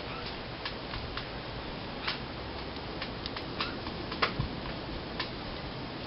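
Steady outdoor background hiss with scattered, irregular sharp ticks, about ten in all.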